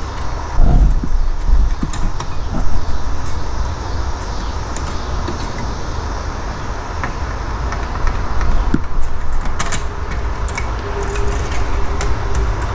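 Small clicks and knocks of the metal and plastic parts of a Blaupunkt 6-disc in-dash CD changer mechanism being handled as its disc platters are fitted back in by hand. There are a couple of dull thumps about a second in and a cluster of sharp clicks near ten seconds, over a steady low rumble.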